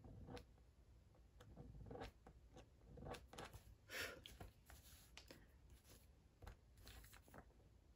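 Faint, irregular scratching strokes of a Slice ceramic-blade tool scraping highlights out of coloured pencil on hot-press watercolour paper. The blade is cutting into the paper itself rather than only lifting the top layer of pencil.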